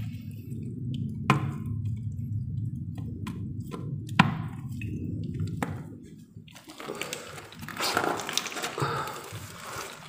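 Water dripping and hands working a wet buried PVC water-pipe joint: a low steady rumble with a few sharp clicks, then a few seconds of rougher splashing and rustling about two-thirds of the way through.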